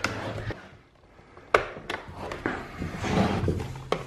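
Stihl MS390 chainsaw being pull-started without catching: a few sharp clicks and knocks, then a rough rising rush with a low hum in the last second and a half as the cord is pulled and the engine turns over against compression.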